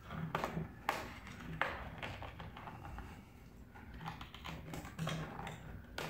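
Plastic bottom cover of an Acer Predator Helios 300 laptop being pried off by hand, its snap-fit clips giving a series of sharp clicks as they release one by one.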